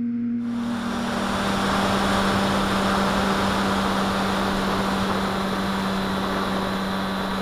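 Skyhunter FPV plane's electric motor and propeller, heard from the onboard camera: a steady low hum whose pitch drops slightly under a second in, as a loud rush of air comes in and stays while the plane noses down into a steep dive.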